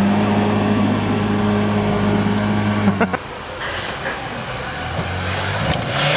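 Lada Niva engine pulling at steady revs through mud, a loud even drone. About three seconds in it cuts off abruptly to a quieter engine hum under outdoor noise, with a few sharp knocks near the end.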